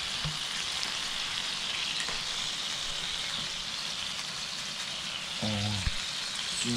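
Halved lobsters sizzling steadily on the hot ribbed plate of a George Foreman electric grill.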